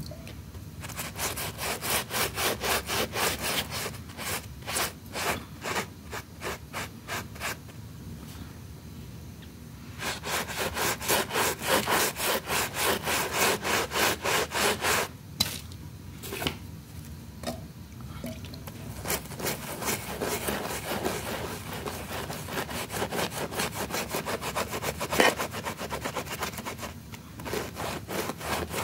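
A stiff brush scrubbing a rug in quick back-and-forth strokes, about three a second, in runs broken by short pauses.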